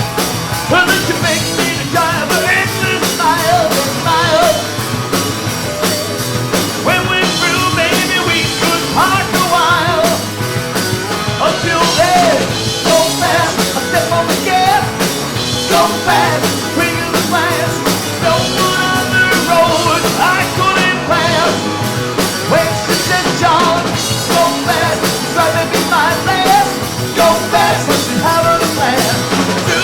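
Rock band playing a song live: drum kit, bass and electric guitars, with a wavering melody line over them.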